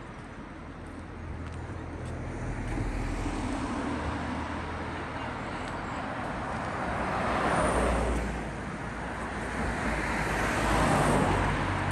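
Road traffic: cars passing one after another, the engine and tyre noise swelling to a peak about eight seconds in and again near the end.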